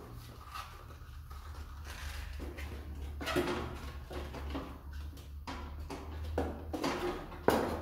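Metal stepladder being climbed: knocks, creaks and rustles as the man steps up it, with one sharp knock near the end, over a steady low hum.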